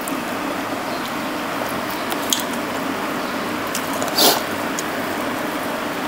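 Close-miked chewing and wet mouth sounds of someone eating, over the steady noise of an electric fan; one louder, brief wet sound about four seconds in.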